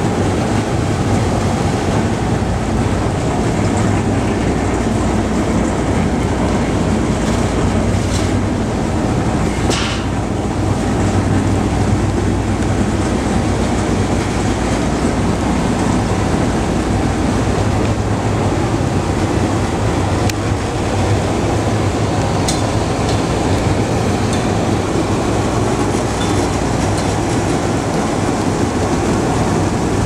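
Industrial apple washing machine running: the motor and spiral auger turn the apples along while water sprays from the nozzles, making a steady, even mechanical rumble mixed with water noise.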